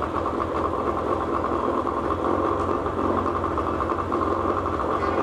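1998 Evinrude 40 hp two-cylinder two-stroke outboard running steadily out of the water on a hose water supply, with a fast even pulsing beat.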